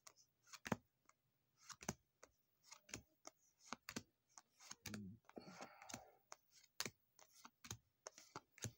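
Faint, irregular clicks of board-game cards being flipped through one by one in the hands, with a short rustle about five seconds in.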